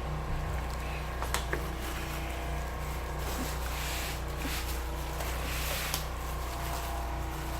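Light clicks and soft rustling of plastic phone-mount parts being handled, over a steady low hum.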